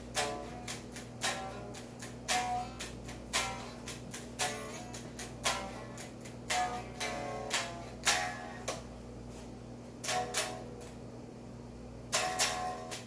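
Electric guitar being picked in short phrases of quick notes with sharp pick attacks, the notes dying away fast, with a couple of short pauses in the second half.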